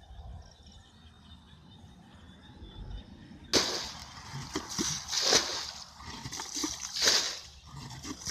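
Water splashing and sloshing that starts suddenly about three and a half seconds in, with several louder splashes after it.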